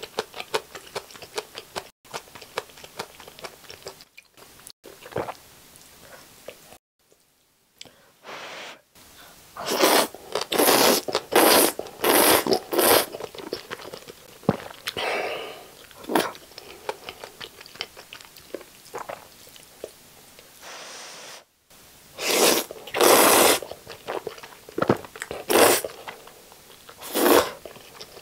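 Close-miked eating of Sichuan Chapagetti black-bean instant noodles: wet chewing and small mouth clicks, then a run of loud noodle slurps about ten seconds in and several more near the end, with a brief silence around seven seconds in.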